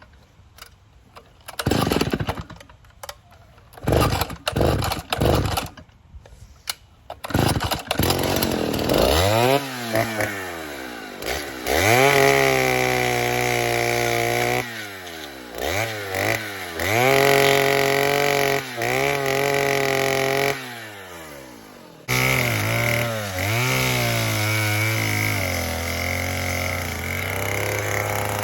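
Two-stroke chainsaw being restarted: several short bursts in the first seconds, then it catches about eight seconds in and runs, revving up and down over and over as it cuts a notch in a cedar post with a dull chain.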